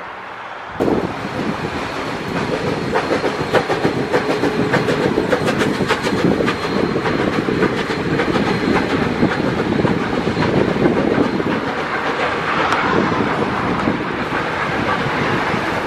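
BB18¼ class 4-6-2 steam locomotive and its train rolling past close by, wheels clattering over the rail joints in a dense run of clicks. The sound cuts in abruptly about a second in.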